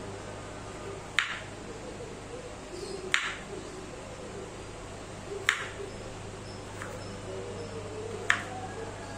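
Kitchen knife cutting vegetables on a cutting board: slow, single chopping strokes about two seconds apart, four sharp knocks and a fainter one between the last two, over a steady low hum.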